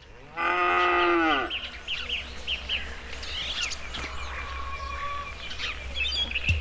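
A cow lows once, a call of about a second whose pitch drops at the end. Birds chirp for the rest of the time over a low steady rumble.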